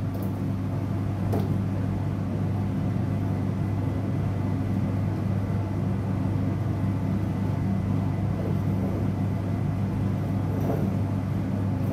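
Laboratory fume hood's extraction fan running with a steady low hum. A couple of faint clicks in the first second and a half come from the cap of a sealed acid bottle being worked open.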